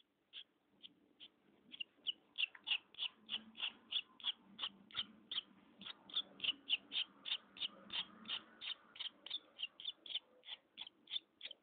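Swallow nestling cheeping: short high calls, a few at first, then a steady run of about four a second from about two seconds in. The rapid cheeping with the beak gaping is a nestling begging for food.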